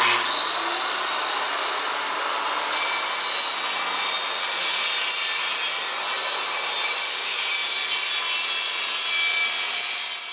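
Handheld circular saw cutting through a sheet of plywood, with a steady motor whine under the noise of the blade in the wood. The sound gets harsher a few seconds in and then holds steady.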